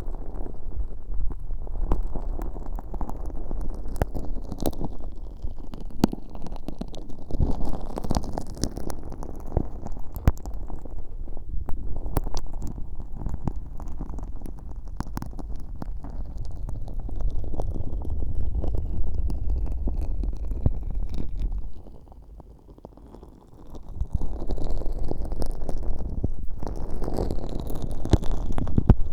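Earpick stirring thick, sticky glitter slime against the bare ear of a binaural microphone: wet squelching and sticky crackles and pops over a low rumble, with a short lull about three quarters of the way through.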